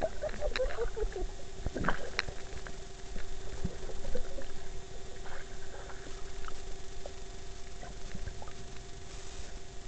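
Muffled underwater sound picked up by an underwater camera held below the surface: scattered clicks and knocks, with a cluster of bubbly gurgles in the first second and a sharper knock about two seconds in, over a steady low hum.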